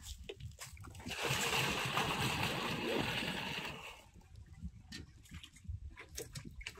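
Spray from an HTP power sprayer's spray gun, hissing and splashing, starting about a second in and cutting off sharply near four seconds in, followed by faint scattered knocks.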